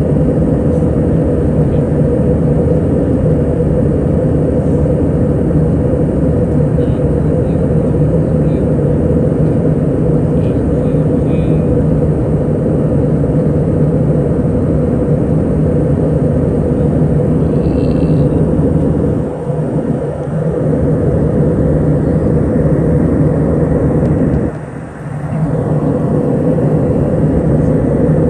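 Steady cabin drone of an Airbus A321 in climb: engine and airflow noise heard from inside the cabin, with a steady low hum. The noise dips briefly twice in the second half.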